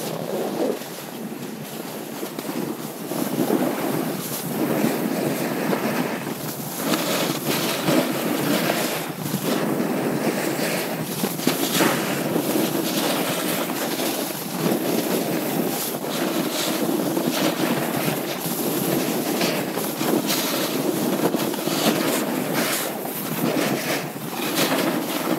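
Wind buffeting the action camera's microphone while riding fast down a snow slope, mixed with the hiss and scrape of the rider's edges on the snow. It is continuous, rising a few seconds in and then surging and easing as he turns.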